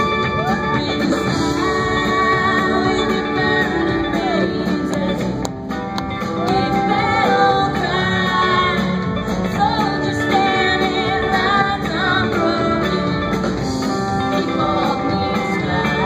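Live country-rock band with electric guitars, in which a fiddle line gives way to a woman singing lead.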